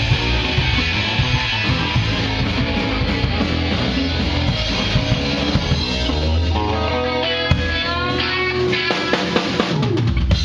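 Punk rock band playing live, with distorted electric guitars, bass and drum kit. About seven seconds in, the low end thins and a lead guitar line of single notes stands out, before the full band comes back in at the very end.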